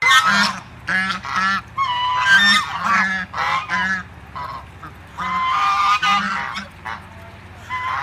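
Canada geese honking repeatedly, a run of quick calls with a short lull about halfway through.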